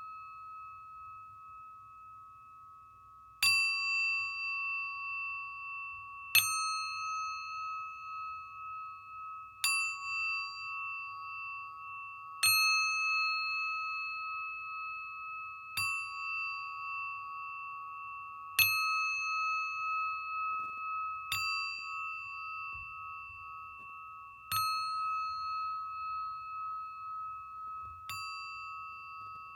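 Singing bowl struck with a mallet nine times, about every three seconds, each strike ringing on with a wavering, beating tone and higher overtones that fade before the next strike.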